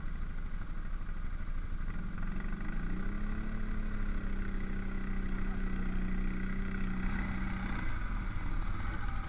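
ATV engines running, with one revving up about three seconds in and holding a steady high note for about five seconds before dropping back.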